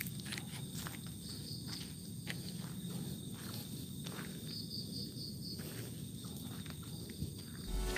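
Faint night-time insect chirping in short pulsed groups over a steady high insect hum, with scattered faint clicks and a low hazy rumble.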